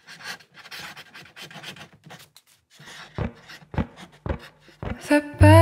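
Pen scratching on paper in quick, irregular strokes, a writing sound effect, followed by four low thumps about half a second apart. Guitar music comes in loudly just before the end.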